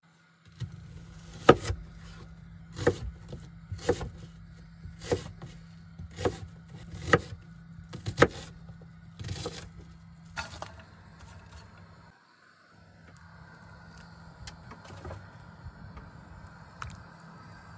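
A kitchen knife chopping an onion on a wooden cutting board: about ten sharp chops, roughly one a second, over a steady low hum. The chops stop about ten seconds in, and only a quieter steady sound follows.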